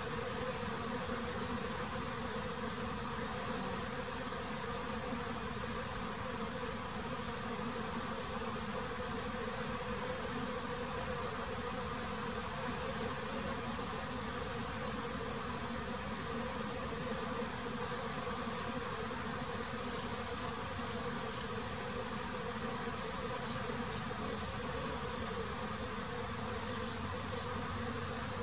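Honeybees buzzing steadily in a continuous hum around the hive. A high, steady insect chirr sits over it, with faint pulses about every second and a half.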